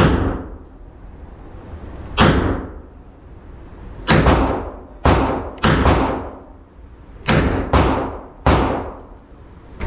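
A series of about eight gunshots fired at an uneven pace, some in quick pairs, each sharp crack trailing off in a short echo.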